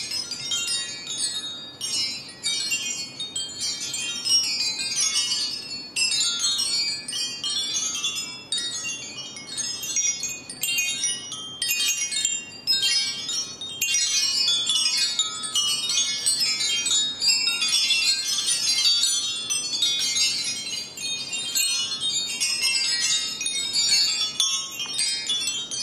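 Aluminium-tube wind chime ringing, its tubes striking again and again so the high, clear tones overlap continuously.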